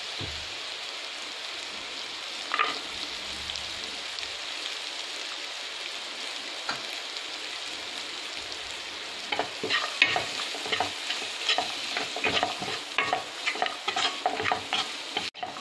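Onion-tomato masala frying in butter in a pan, with a steady sizzle. A single knock about two and a half seconds in; from about nine seconds in, a wooden spatula scrapes and stirs through the freshly added diced carrot in quick irregular strokes.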